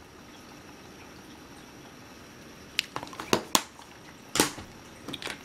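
Handling noise of tablets being picked up and set down on a glass-topped desk: a few sharp taps and clicks about three seconds in, then a louder knock about a second later.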